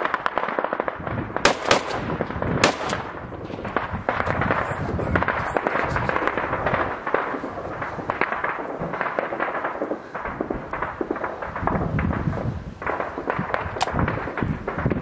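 Heavy small-arms gunfire: a dense, rapid crackle of rifle and machine-gun fire, with a few louder, sharper shots, two in the first three seconds and one near the end.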